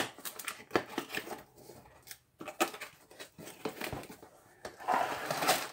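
Cardboard kit box being opened by hand: the inner tray slides and scrapes out of its printed outer sleeve, with scattered taps and scuffs, then a longer stretch of rustling and scraping from about five seconds in.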